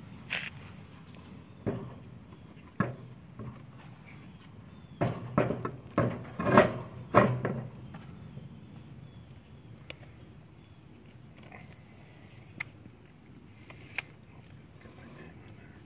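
A steel trailer wheel being handled on the hub's bare studs: a series of knocks and scrapes of rim against metal, loudest in a cluster about five to seven and a half seconds in, then a few light ticks.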